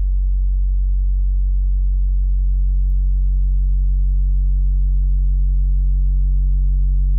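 Synthesized 100 Hz sine test tone with a subharmonic sub-bass beneath it, driven through a saturator that adds a few faint overtones above. It is a steady, unchanging low hum.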